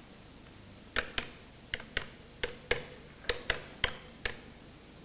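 Keys of a white push-button desk telephone being pressed to dial a number: about ten sharp clicks, often in quick pairs, starting about a second in.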